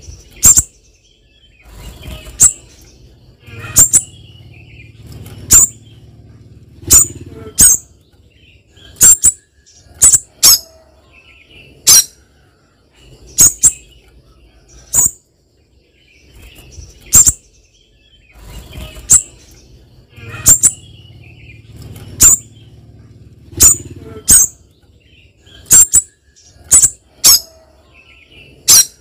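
Caged spiderhunter giving loud, short, sharp, high-pitched call notes about once a second, often in quick pairs, with the bird fluttering and hopping about the cage.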